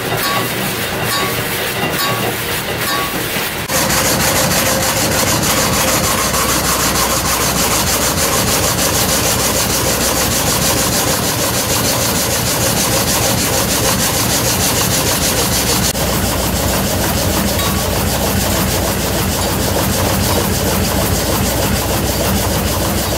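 Old frame saw (gang saw) driven by a stationary Bukh engine, running with a regular clatter and ticking. About four seconds in, a much louder, rhythmic sawing noise starts as the reciprocating blades cut through the log, and it carries on steadily.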